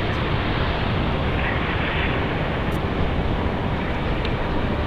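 Jet airliner engines, a steady loud noise with no sudden changes.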